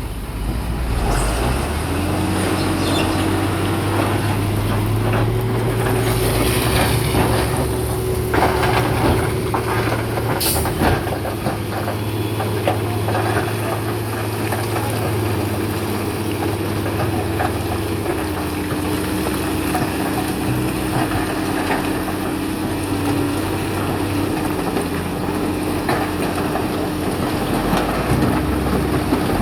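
Bulldozer's diesel engine running steadily under load, its pitch stepping up and down a few times, with scattered clanks and scrapes of rock and steel, loudest about eight and ten seconds in.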